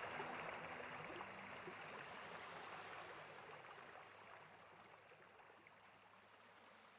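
Sea waves washing steadily, fading out over about five seconds to near silence.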